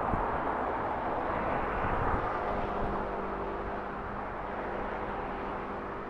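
Road traffic passing, a steady rushing noise that swells about two seconds in, with a low engine hum coming in about halfway through.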